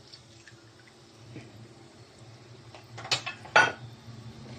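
Cooking oil poured softly into a wok of annatto seeds, then two sharp clinks of cookware about three seconds in, half a second apart.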